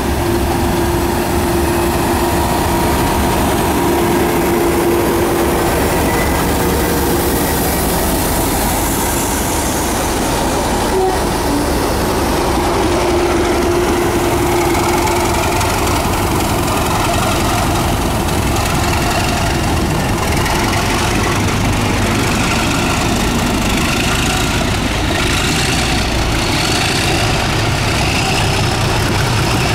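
A BR Class 37 diesel locomotive's English Electric V12 engine running steadily as the locomotive passes slowly at close range, followed by its coaches rolling by. Thin high squeals come in over the second half as the coaches pass.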